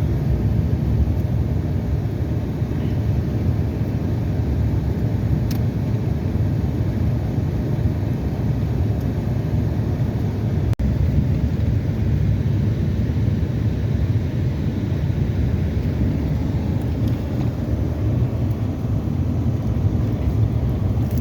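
Steady low road and engine rumble heard inside a car's cabin while driving, with a brief cut-out about eleven seconds in.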